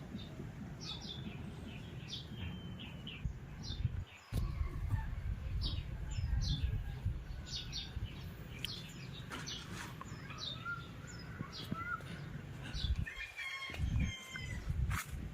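Small birds chirping: many short, high chirps repeated throughout, with a few short whistled notes in the second half. A low rumble runs underneath and drops out briefly twice.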